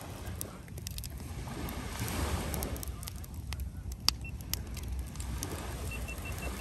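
Beach bonfire of dry branches crackling, with scattered sharp pops, the loudest about four seconds in, over a steady low rumble.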